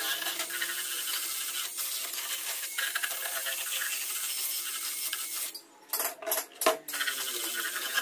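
Cordless Makita 18V drill spinning a wire wheel brush against charred pine, brushing off the burnt surface: a steady scraping hiss over the motor's whine. About five and a half seconds in it stops briefly, then gives a few short bursts before running steadily again.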